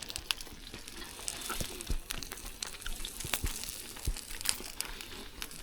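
Sausages sizzling on a gas barbecue hot plate: a faint hiss with irregular small crackles and pops of spitting fat.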